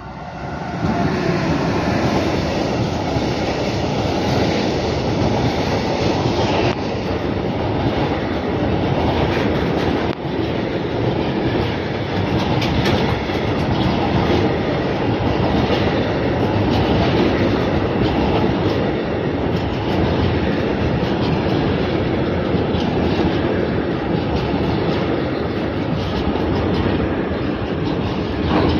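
Freight train of covered hopper wagons behind an electric locomotive passing close by. It swells sharply in the first second as the locomotive arrives, then runs on as a steady rumble with the clickety-clack of the wagon wheels.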